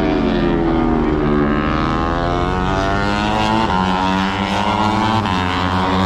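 Moto3 race motorcycles, 250 cc single-cylinder four-strokes, passing at high revs on the track. The engine pitch sweeps, then steps sharply with gear changes about every second and a half.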